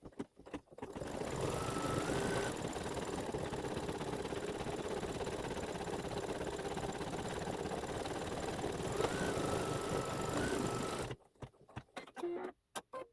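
Embroidery machine sewing a satin-stitch border at a steady speed, starting about a second in and stopping shortly before the end, with a few short clicks before it starts and after it stops.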